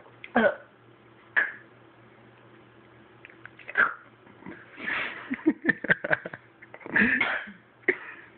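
A woman's short wordless vocal reactions, coughs, gasps and groans, to the harsh taste of a strong mustard-greens juice she has just swallowed. They come as a string of brief outbursts, with a quick cluster of them in the middle.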